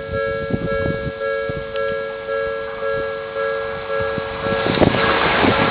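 Electronic warning bell of a Japanese railway level crossing ringing in a steady, evenly repeating pattern. About four and a half seconds in, the rising rush of an approaching train begins to cover it.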